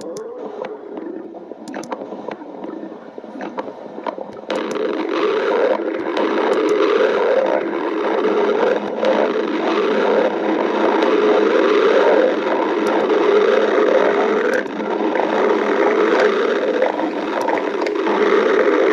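A badger's stomach growling: long, continuous gurgling rumbles that grow louder about four and a half seconds in, with a few sharp clicks in the first few seconds.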